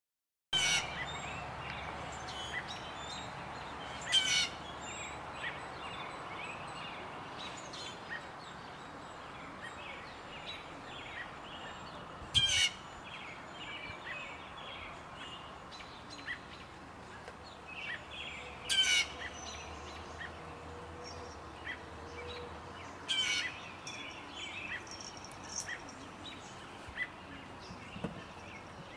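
Blue jay calling loudly in single calls spaced several seconds apart, about five in all, scolding a cat in the mobbing way jays use against predators. Faint chirps from other small birds sound in between.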